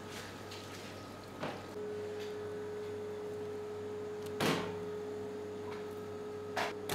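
A steady machine hum with a single held tone that starts about two seconds in, broken by three sharp knocks, the loudest about halfway through.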